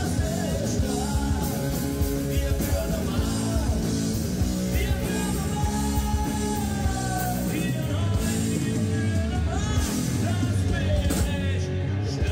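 Live rock music from a band with a singer, loud and steady throughout.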